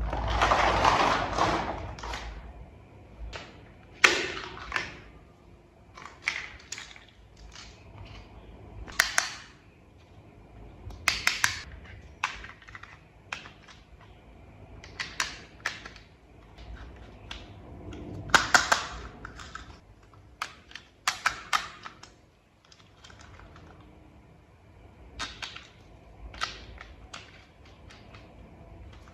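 Small plastic toy parts being handled and fitted together: irregular clicks, snaps and clatters, with a longer rustling clatter in the first two seconds.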